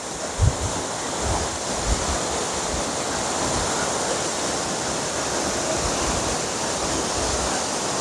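Tall waterfall swollen by monsoon rain, crashing down a rock face: a loud, steady rush of falling water, with a few short low thuds through it.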